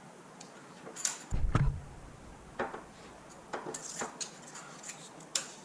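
Light handling noises: scattered short clicks and taps, with one dull thump about a second and a half in.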